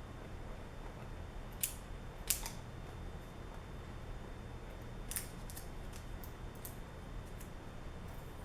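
Plastic packaging of a GoPro camera box being handled as its pull tabs are worked loose: a few sharp clicks, three louder ones about a second and a half, two and a third, and five seconds in, with fainter ticks between, over a low steady hum.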